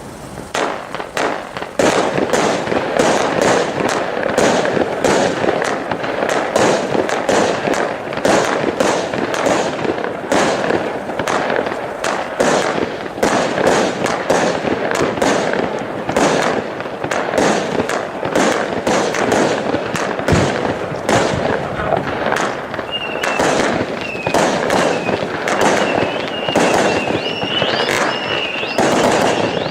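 Consumer display fireworks firing a fast, dense barrage of shots and crackling. Near the end, a high wavering whistle joins the shots.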